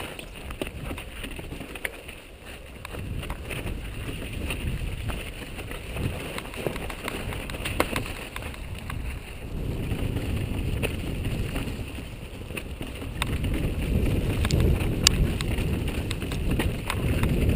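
Downhill mountain bike clattering over a rocky trail at speed: the tyres rumble while the chain and frame rattle with many sharp clicks and knocks, and wind buffets the microphone. It grows louder about ten seconds in.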